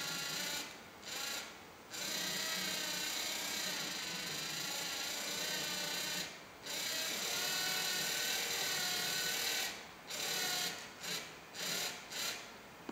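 LEGO Mindstorms NXT motor whirring as it drives a 3D-printed plastic gear train, its pitch rising and falling as the speed changes with the circling finger over the Leap Motion sensor. It stops and restarts several times, in quick short runs near the end.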